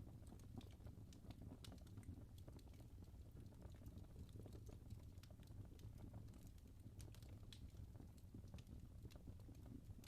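Faint wood fire in a fireplace crackling: many small, irregular pops and snaps over a low, steady rumble.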